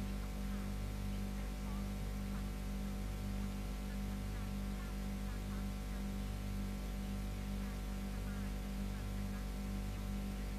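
Steady electrical hum that pulses about twice a second, with a few faint high chirps over it.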